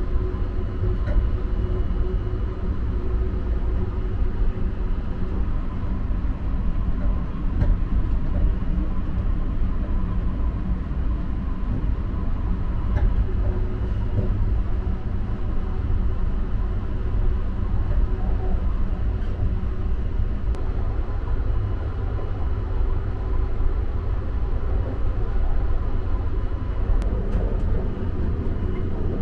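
Steady low rumble of the Sunrise Express, a 285 series electric sleeper train, running, heard from inside the carriage with a few faint steady hum tones over it.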